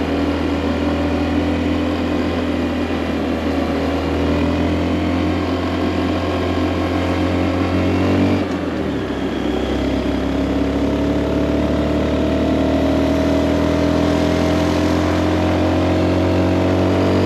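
Honda Monkey motorcycle's single-cylinder four-stroke engine under way, holding steady revs. About eight seconds in the revs dip briefly, then climb steadily as it accelerates.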